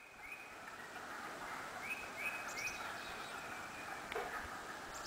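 A steady, dense chorus of frogs calling from a woodland vernal pool, with a few short high calls over it: two near the start and three about two seconds in.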